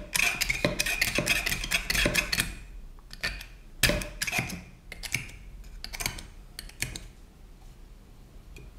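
Polyurethane buffer being turned inside a CBC B19 S air rifle's steel compression cylinder with a hand tool. Dry scraping and clicking, dense for the first two and a half seconds, then sparser single clicks about a second apart that grow fainter. The noise is a sign that the freshly honed chamber is still dry under a thin smear of grease.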